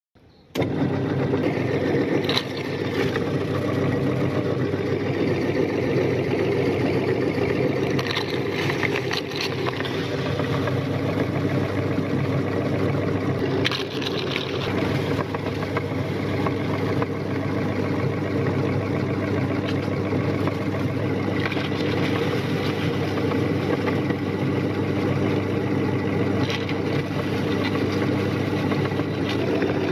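Electric meat grinder motor starting about half a second in and running steadily, its auger crushing dry biscuits into powder, with a few short crunches along the way.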